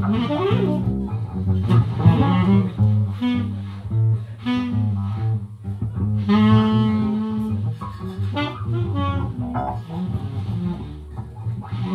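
Saxophone and electric bass guitar playing live together in a jazz-like improvisation. The saxophone plays a line over a steady bass part and holds one long note about six seconds in.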